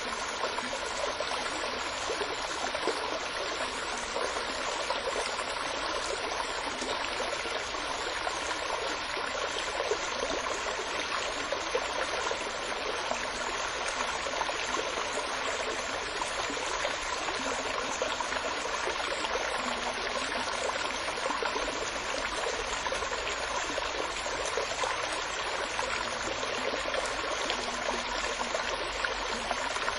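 Steady running water, like a flowing stream, with an even, unbroken rush.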